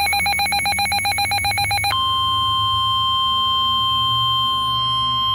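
Weather radio alert tones: a rapidly pulsing electronic beep, then about two seconds in a single steady NOAA Weather Radio 1050 Hz warning alarm tone, signalling that a new warning is about to be broadcast.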